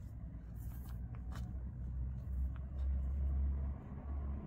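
Faint rustles and soft ticks of cotton macrame cord being worked into double half-hitch knots, over a low rumble that swells about two seconds in and fades near the end.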